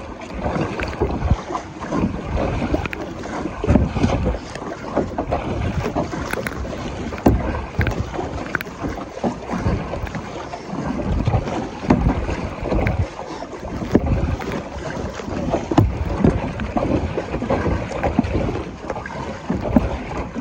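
Choppy lake water slapping and sloshing against a plastic kayak hull, with irregular thumps as waves hit the boat. Wind buffets the microphone throughout.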